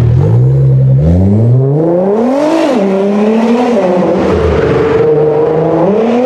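Nissan GT-R (R35) twin-turbo V6 accelerating away hard: the revs climb steeply to a peak about two and a half seconds in, drop back, hold a steadier lower note, then rise again near the end.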